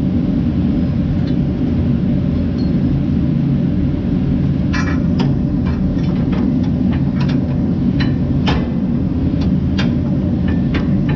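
A steady low rumble under scattered sharp metal clinks and knocks as a steel snow-plow mounting bracket is handled and pressed against a pickup truck's frame; the clearest knocks come about five and eight and a half seconds in.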